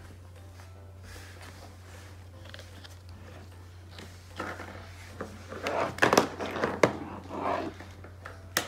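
Plastic Minnie Mouse doll toy being handled on a tabletop: a low steady hum alone at first, then from about halfway through, rustling and several sharp plastic clicks and knocks, with one more click near the end.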